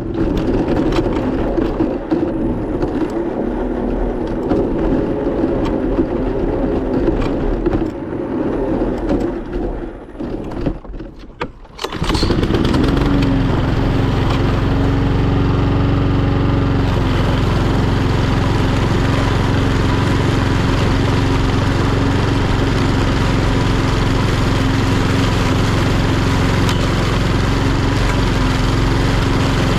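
Etesia Pro46 lawnmower's Honda GCVx170 single-cylinder engine running. It is uneven for the first several seconds and falls away briefly just before the midpoint, then runs loud and steady from about twelve seconds in.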